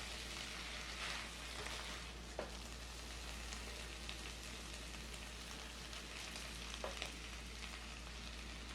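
Food sizzling steadily in a hot frying pan, with two light knocks along the way.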